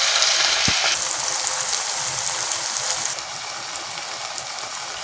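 Grated-potato patties deep-frying in hot oil in a kadhai: a steady, loud sizzle of bubbling oil, which steps down a little about three seconds in.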